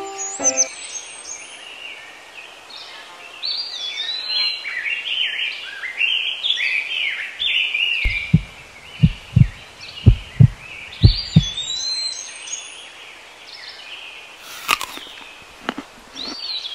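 Small birds chirping and twittering in short rising and falling calls. About halfway through comes a run of about seven dull low thumps, the loudest sounds here.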